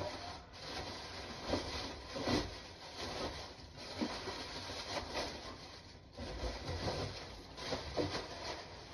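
Cardboard packaging scraping and rustling against a countertop, with scattered light knocks, as a boxed appliance is handled and unpacked.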